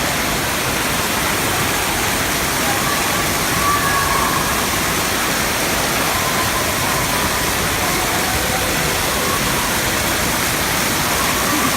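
Steady, loud rush of falling and splashing water from an indoor water park's water features, with faint voices far off.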